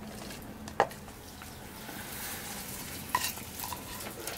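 Steady sizzle and hiss of food cooking as a handful of green stalks goes into a steaming pot of stew, with two sharp clicks, one a little under a second in and one about three seconds in.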